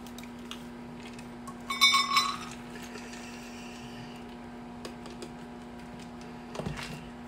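A brief ringing clink of glass, the glass jar of peanuts knocking against glass, about two seconds in, with a smaller knock near the end. Under it runs the steady hum of a microwave oven cooking.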